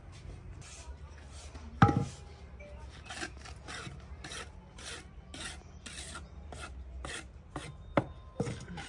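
Hand trowel scraping and scooping cement mix, in short repeated strokes about two a second, with a few sharp knocks, the loudest about two seconds in and another near the end.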